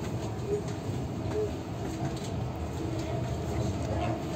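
Steady rumble of a moving double-decker passenger train, heard from inside the carriage corridor: wheels on rails and running noise of the coach.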